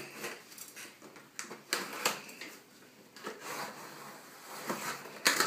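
Cardboard shipping box being cut open with a small knife: scraping and tearing of packing tape and cardboard in short, uneven strokes, with a few sharp clicks and snaps.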